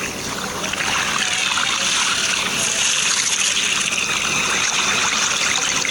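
Wet, gushing, slithering film sound effect of the Venom symbiote oozing out and forming beside its host. It swells about a second in and then holds steady.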